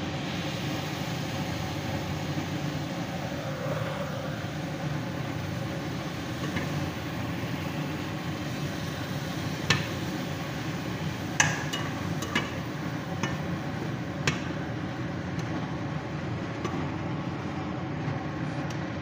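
Metal slotted spatula stirring chicken pieces and tomato sauce in a metal frying pan, with a handful of sharp clinks as it strikes the pan in the middle of the stretch, over a steady low hum.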